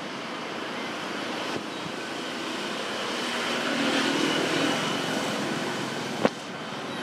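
Steady rushing background noise that swells about halfway through, with one sharp click near the end.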